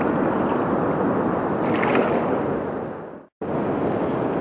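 Flooded river current rushing past the bank, a steady wash of moving water. A little after three seconds in the sound fades out for a moment, then the same steady rushing resumes.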